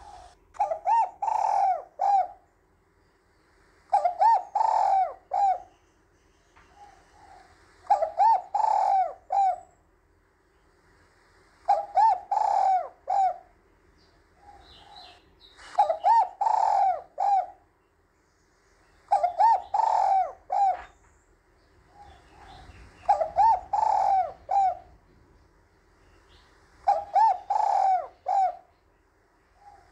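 Spotted dove cooing: a short multi-note coo phrase repeated about every four seconds, eight times.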